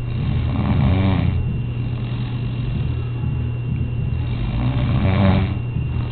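A sleeping woman snoring loudly: two long snores about four seconds apart, over a steady low hum.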